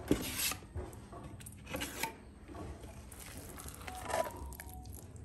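Small steel trowel scraping and smearing wet neat cement paste over the back of a granite tile in short strokes, then scooping more paste from a bucket about four seconds in. A sharp knock of the trowel right at the start is the loudest sound.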